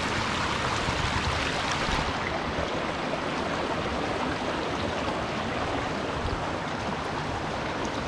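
Waterfall's steady rush of falling water.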